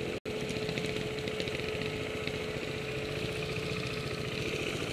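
Trials motorcycle engine idling steadily, after a very short cut-out near the start.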